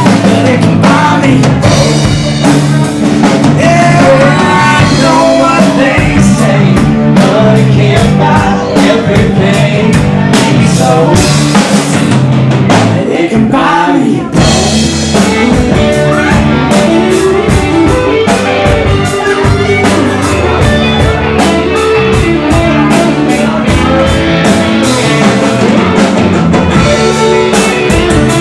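Live country band playing loudly in a small room: drum kit, electric bass, guitar and fiddle.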